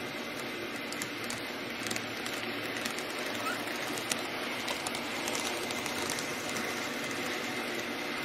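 N-gauge model train of KiHa 56 and KiHa 22 diesel railcars running on the layout track: a steady running noise with scattered light clicks.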